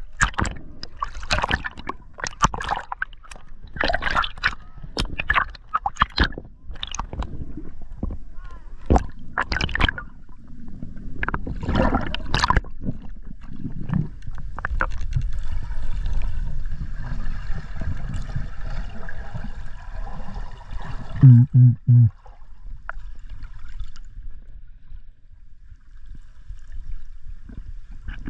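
Sea water splashing and sloshing against a diver's camera at the surface, then a steadier muffled hiss once it is underwater, with a few deep thuds about two-thirds of the way through.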